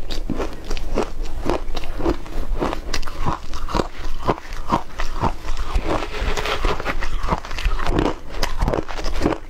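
Close-miked crunching of shaved ice being chewed, a steady run of crisp crunches about two or three a second, mixed with a metal spoon scraping and scooping through the matcha-topped shaved ice.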